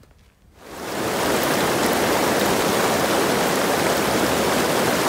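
The Verde River in flood, muddy water rushing fast over rapids, running high from heavy rain upstream. A loud, steady rush fades in within the first second after near silence.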